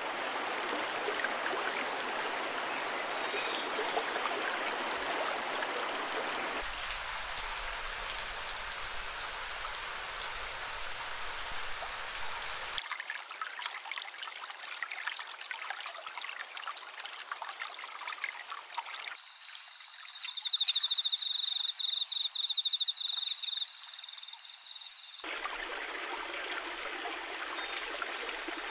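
Water of a rocky stream rushing steadily, in a run of spliced nature recordings that change abruptly every few seconds. A high trill runs over the water in one stretch. A thinner, hissier stretch follows, and then a stretch of repeated high trilling calls over quieter water.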